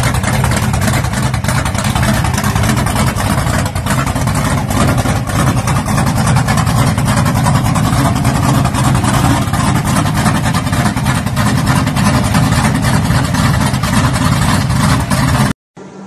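Engine of a lifted square-body pickup truck running steadily, loud and close, with a dense fast pulsing from the exhaust. It cuts off suddenly near the end.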